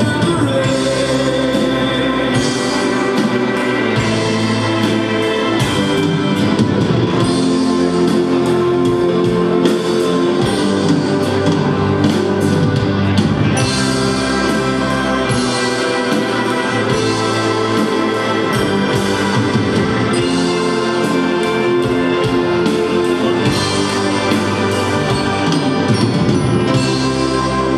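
A wind band and a rock band playing a rock ballad together, loud and steady: sustained brass and reed chords over a drum kit with cymbal hits throughout.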